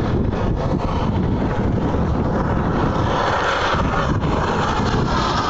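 Large radio-controlled Mi-24 Hind model helicopter flying, its rotor and motor noise growing louder in the second half as it comes closer, under heavy wind buffeting on the microphone.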